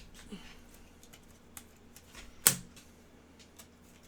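Trading cards being handled at a table: a few light clicks and taps, with one sharper click about two and a half seconds in.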